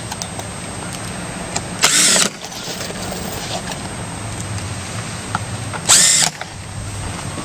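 Cordless drill run in two short bursts about four seconds apart, each lasting about half a second, over a steady low hum.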